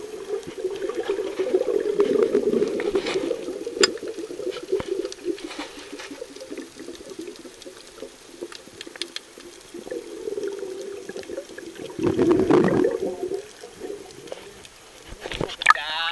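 Muffled underwater water noise, heard through a submerged camera, with bubbling from a freediver's snorkel and scattered small clicks. A louder rush of water comes about twelve seconds in, and a few sharp knocks just before the end.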